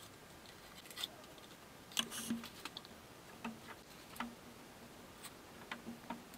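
Faint, scattered clicks and light metallic knocks from working a lathe's tailstock to press an aluminium mandrel washer onto a bench grinder's motor shaft.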